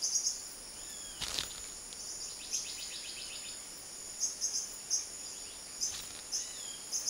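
Forest insects droning steadily at a high pitch, with short, irregular chirps coming and going over it. A brief rustle about a second in.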